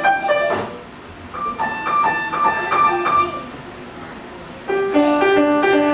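A child playing a simple tune on an upright piano, separate notes in short phrases. There are brief pauses about a second in and again a little past the middle, and a louder run of lower notes near the end.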